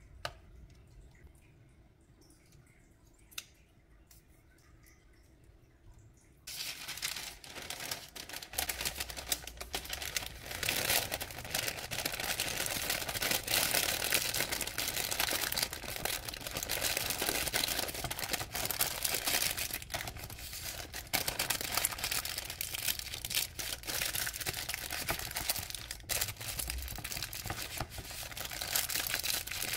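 Two faint clicks, then from about six seconds in, parchment paper crinkling and rustling continuously as a sandwich is folded and rolled up tightly in it.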